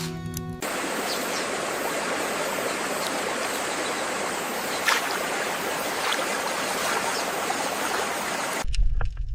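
Running water from a stream, a steady even rush that starts about half a second in and cuts off abruptly near the end.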